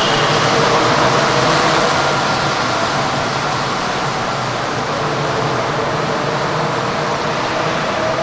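Tateyama Tunnel Trolleybus running at the tunnel station: a loud, steady rush of noise with faint steady whine tones from the electric drive.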